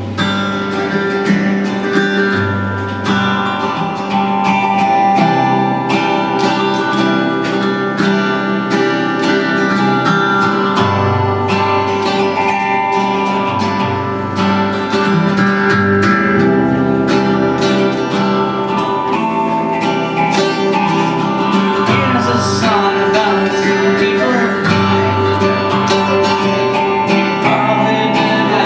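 Acoustic guitar played solo, a steady pattern of plucked and strummed notes over bass notes that shift every second or two.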